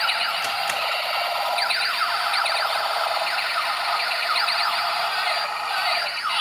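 Walking robot toy's electronic gun-shooting sound effect from its small built-in speaker: repeated falling zaps over a steady electronic tone.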